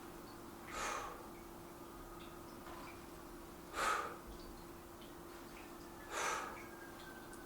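A man breathing out hard through his nose, three times at even spacing about every two and a half to three seconds, as he works through a set of dumbbell reps. A steady low hum runs underneath.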